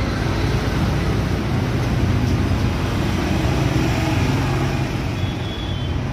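Steady, low rumbling background noise with no distinct events.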